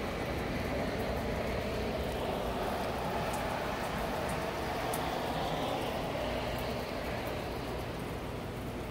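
Highway traffic on wet roads mixed with steady rain: a continuous tyre hiss that swells around the middle as vehicles pass and eases off toward the end, with a few faint drip-like ticks.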